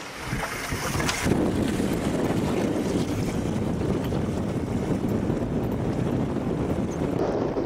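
Wind rumbling on the microphone over a small boat's outboard motor running at trolling speed. It rises within the first second and then holds steady.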